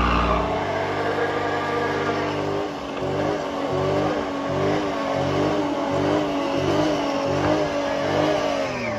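Chevy Suburban V8 held at high revs through a tire-smoking burnout. The engine pitch wavers up and down, pulsing about twice a second from around three seconds in. Near the end it falls as the revs come down.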